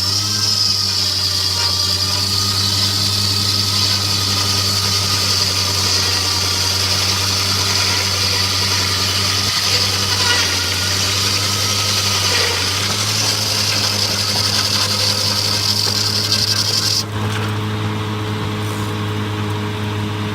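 Engine-driven circular sawmill running steadily, with a high, hissing cutting sound over the engine drone that stops about three seconds before the end, leaving the engine and blade running.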